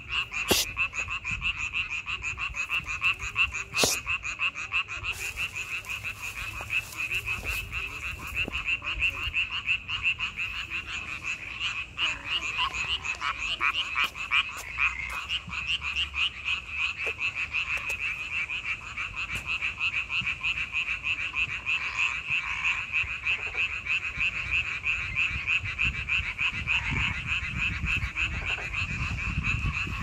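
A dense chorus of many frogs calling at once: a continuous mass of rapid, overlapping croaks.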